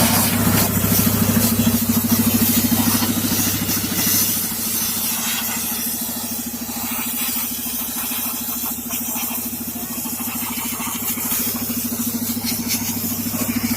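Tractor-driven air compressor running: a steady engine drone with a fast, even pulse that dips a little in loudness through the middle.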